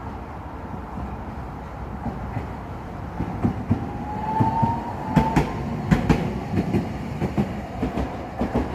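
A Toei Arakawa Line tram passing, its wheels knocking over the rail joints in an irregular clatter that builds from about three seconds in. A brief rising whine sounds around the middle.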